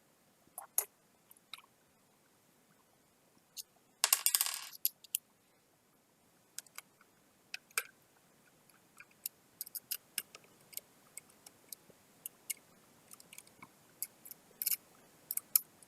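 Scattered small clicks and taps of metal parts being handled, with a short burst of scraping and rattling about four seconds in, as a laptop heatsink is set onto the motherboard and its screws are started with a small screwdriver.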